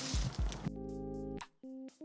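Outro music: short held chords with sharp percussive hits. The chords break off about a second and a half in, and a brief chord follows.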